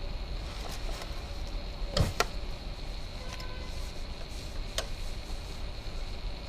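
A few sharp clicks and knocks, the loudest a double knock about two seconds in, over a steady low rumble and a faint high steady whine.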